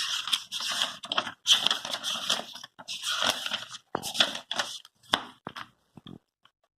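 Irregular bursts of rustling and handling noise, thinning out to a few faint clicks over the last couple of seconds.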